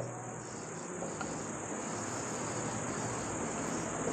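Steady high-pitched insect trilling, like crickets, over a steady background hiss.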